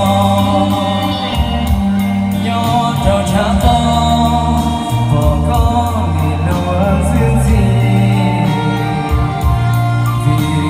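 A man singing a Hmong-language song into a microphone over a backing track with bass, amplified through PA loudspeakers.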